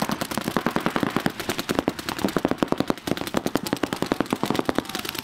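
Paintball markers firing in rapid, overlapping strings of shots, about ten a second, from several players at once.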